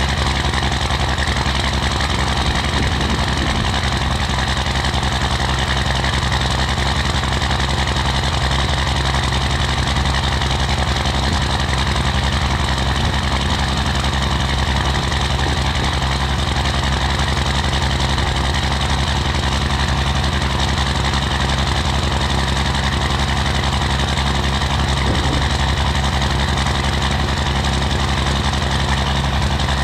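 First-generation Dodge Ram's Cummins 5.9-litre inline-six turbodiesel idling steadily at a slow, cold idle of about 400 rpm, still cold after starting at −7 °F without a block heater.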